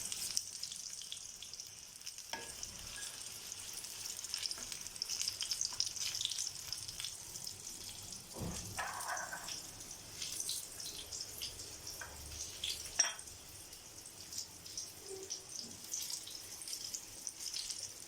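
Marinated fish pieces sizzling steadily as they deep-fry in hot oil, with a few short knocks, about two, eight and a half and thirteen seconds in, as the fried pieces are lifted out.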